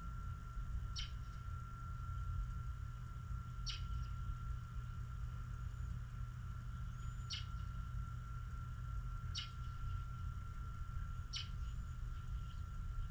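A bird giving short, sharp chip calls, about one every two seconds, over a constant low rumble and a faint steady high tone.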